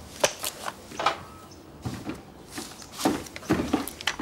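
Handling noises: a run of short clicks, knocks and rustles as things are picked up and moved, with a plastic evidence bag among them.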